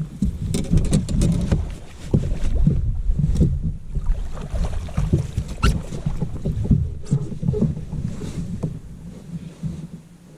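Knocks, thumps and handling noise on a fishing boat during the fight with a hooked bass, over a low rumble like wind on the microphone.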